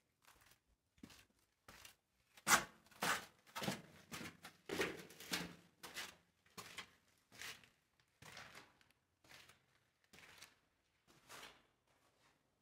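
Footsteps crunching and scuffing on sand and grit over a concrete floor inside a small bunker room, a steady walking pace of short scrapes, busiest and loudest a few seconds in.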